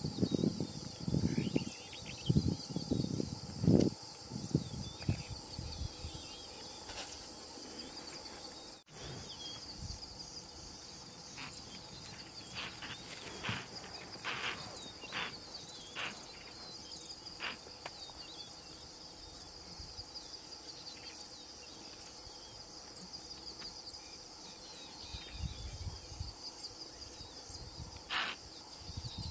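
Steady high, shrill insect chorus of crickets or cicadas, with a run of short chirps in the middle. Low irregular rumbles come and go in the first few seconds and again near the end.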